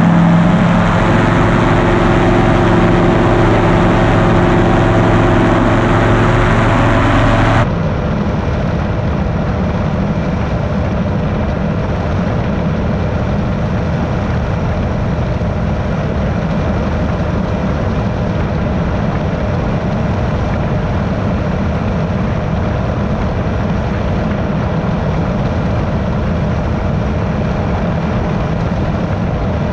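Powered parachute's engine and propeller running steadily in low flight. About eight seconds in the sound cuts abruptly to a duller, noisier drone with more low rumble, heard from under the cart.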